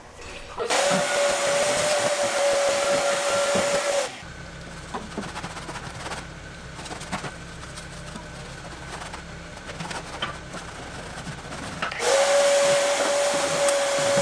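Shop vacuum running: a steady whine over a rushing hiss, sucking up debris from a car's stripped floor pan. It stops after about three seconds, and after a quieter stretch with small knocks it starts again near the end, its pitch rising briefly as it spins up.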